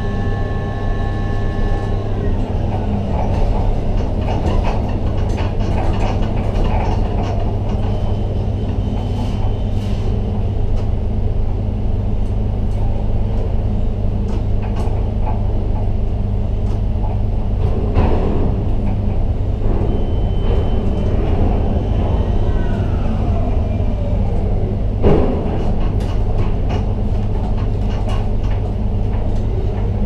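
Ship-to-shore container crane's trolley and hoist drives running, heard from the operator's cabin: a steady low drone with electric-drive whines that slide up and down in pitch as the speed changes. Scattered clicks and two knocks, the second and loudest a few seconds before the end.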